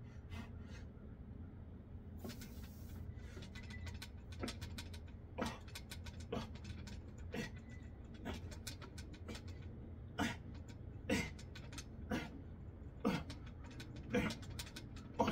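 A man breathing hard through a set of dips, with a sharp, strained exhale or grunt on each rep about once a second, getting louder toward the end. A steady low hum runs underneath.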